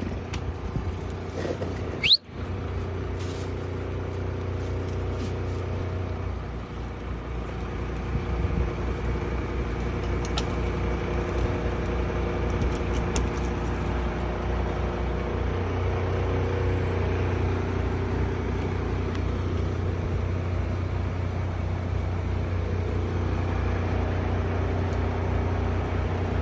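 Crane's engine running steadily: a low, even drone that grows a little louder after several seconds, with a short rising squeal about two seconds in.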